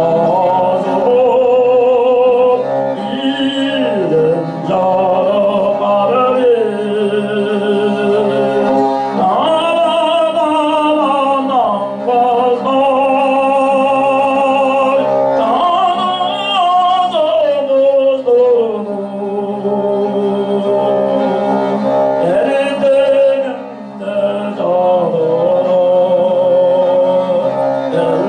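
Tuvan throat singing: a steady low drone with a wavering melody carried in the overtones above it, accompanied by a bowed Tuvan fiddle, with one short break for breath near the end.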